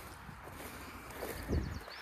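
Footsteps swishing through tall, rain-wet pasture grass, with one dull thump about one and a half seconds in.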